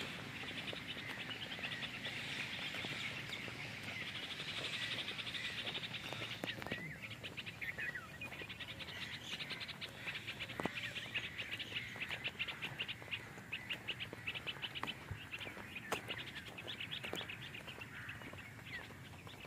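Birds chirping and chattering in a dense, steady chorus of rapid high calls, with a few sharp clicks.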